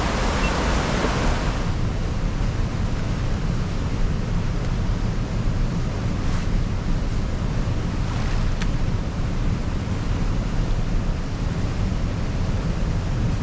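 Steady rushing noise of wind rumbling on the microphone over flowing river water, with a brighter hiss in the first two seconds that then eases.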